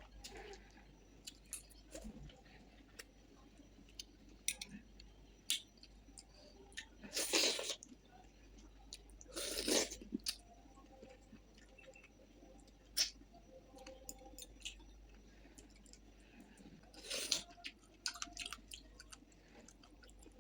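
Close-up eating sounds of fish curry and rice: chewing and mouth smacks as many short scattered clicks, with three louder noisy bursts about 7, 10 and 17 seconds in.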